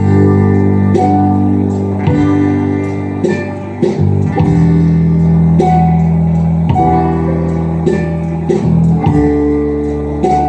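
Worship band playing an instrumental passage of strummed guitar chords over a sustained bass, the chords changing every second or two, with no singing.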